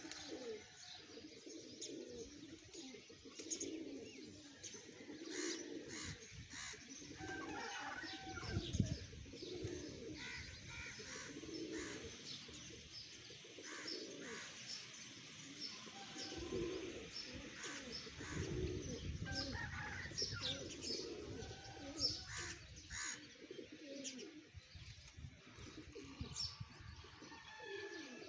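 Domestic pigeons cooing over and over from a loft full of birds, mixed with short high chirps of other birds. A brief low rumble comes about nine seconds in.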